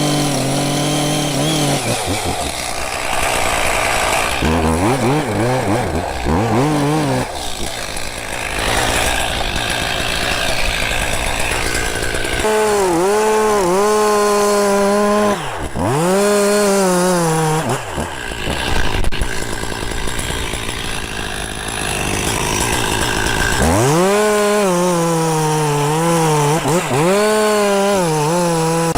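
Chainsaw running at high revs and cutting wood, its engine note repeatedly dipping under load and climbing back as the chain bites.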